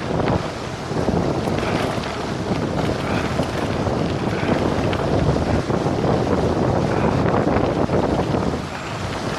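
Wind rushing over the camera microphone as a cyclocross bike descends fast on a gravel road. The wind is mixed with the rumble of tyres on loose gravel and small scattered clicks.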